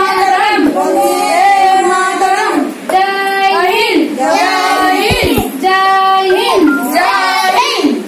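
A child singing a melody unaccompanied, in short phrases of held and bending notes, with a brief breath about three seconds in.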